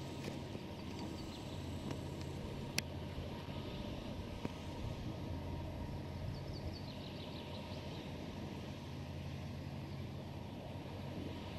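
Gearless Enercon E-141 EP4 wind turbine running, heard from the foot of its tower: a steady low hum over an even noise, with one sharp tick about three seconds in.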